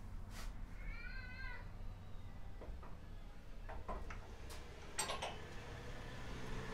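Light metallic clicks and knocks as a heavy steel rear bumper is worked onto the frame brackets, the loudest a sharp ringing clank about five seconds in. A short wavering squeak comes about a second in.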